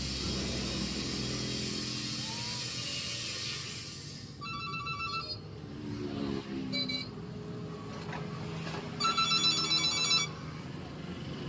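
A steady whirring hum fades over the first few seconds, then an electronic trilling tone like a phone ringtone sounds in three bursts: a short one, a very brief one, and a longer one near the end.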